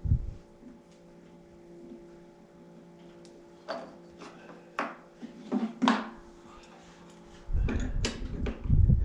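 Metal parts of a nutcracker roll crimper being worked loose by hand: a thump, then scattered clicks and knocks, and a clumsy stretch of heavier thumping and rattling near the end, over a steady low hum.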